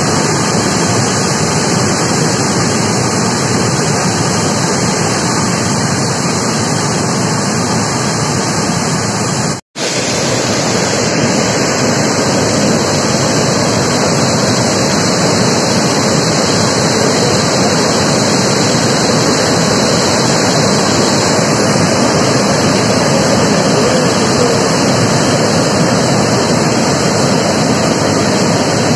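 Swollen, muddy river in flood pouring over a dam's spillway weir and churning below it: a loud, steady rush of water. The sound cuts out for an instant about ten seconds in.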